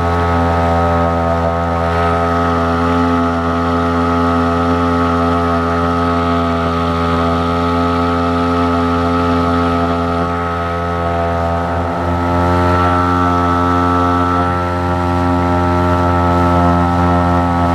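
Parsun 2 hp outboard motor running steadily under way, pushing a loaded canoe, with the steady drone of the small engine over the wash of the wake. The engine note shifts slightly, a little higher, about two-thirds of the way through.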